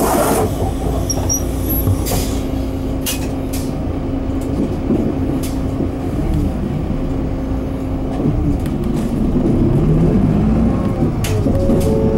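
Mitsubishi Fuso Aero Midi MK bus's 6M61 diesel engine heard from inside the cabin, running at a steady pitch, then rising in pitch from about eight and a half seconds in as the bus accelerates. A few faint clicks come through.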